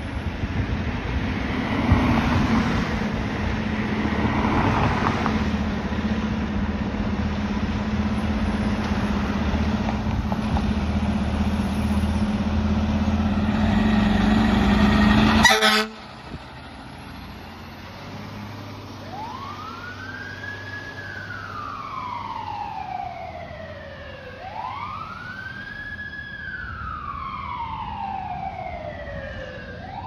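Fire truck's diesel engine running loudly with a steady low hum as the truck pulls out of the station bay. About halfway through the sound cuts off abruptly, and a few seconds later the truck's siren wails, rising and falling slowly, about two full cycles.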